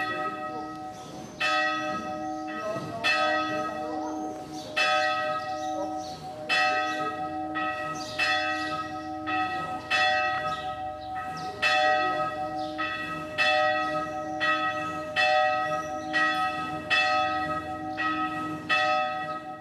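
Church bell ringing, struck over and over at a little more than a second apart, each stroke ringing on into the next.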